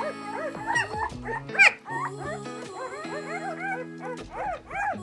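Newborn Newfoundland–Saint Bernard puppies squeaking and whimpering: many short, high, overlapping cries, with one louder squeal about a second and a half in. Background music with held chords plays underneath.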